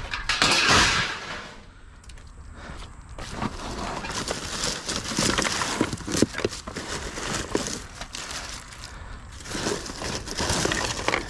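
Scrap metal and junk being picked through and handled: irregular clanks, knocks and rustling as pieces are moved and pulled from the pile.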